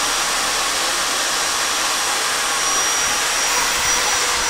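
Corded handheld electric power tool running steadily at a constant speed, a loud even whirr with a faint high whine.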